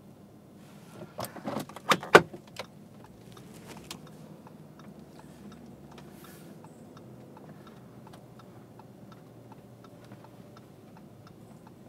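Cabin of a moving car towing a caravan: a steady low engine and road hum. About one to two and a half seconds in comes a cluster of sharp rattling knocks, and after that a run of light, fairly regular ticks.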